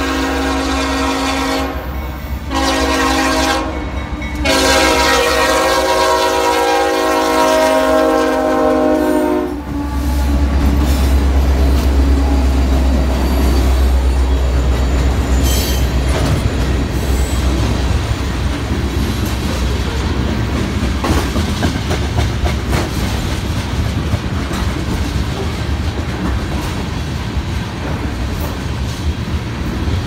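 Union Pacific GE AC45CCTE (GEVO) locomotive's K5HL five-chime air horn blowing a crossing signal: two short breaks in the first few seconds, then one long blast that cuts off about ten seconds in. The lead locomotives then pass close with a heavy low rumble, followed by tank cars rolling by with steady wheel clickety-clack on the rail joints.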